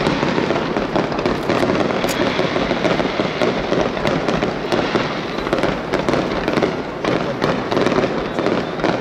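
Aerial fireworks display: many shells bursting at once in a dense, continuous crackling and popping, with sharp bangs throughout.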